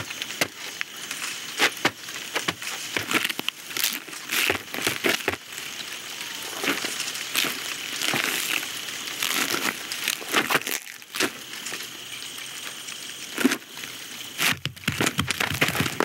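Animated-film sound effects for cartoon insects moving: a busy stream of small clicks, crackles and crinkly rustles from their shell-like bodies and limbs, thicker toward the end.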